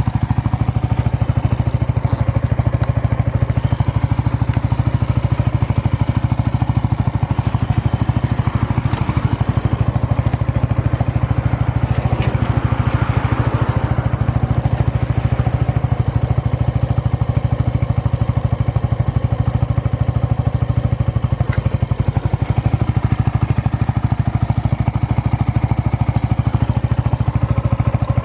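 Suzuki Grasstracker's air-cooled single-cylinder engine idling steadily through an aftermarket SuperTrapp full exhaust, with a brief swell of noise near the middle. The engine runs with no abnormal noises.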